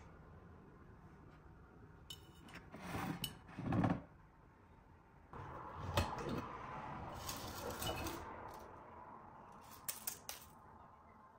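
Kitchen handling sounds: a fridge door is worked, then a glass jar is set down on a wooden worktop with a sharp knock. Its lid is unscrewed with a scraping rustle, and dry bay leaves are picked out with a few light clicks and crackles.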